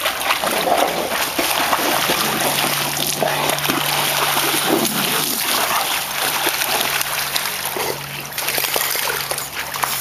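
Pool water splashing and sloshing as dogs swim, paddle and clamber out over the pool steps, with a steady low hum underneath.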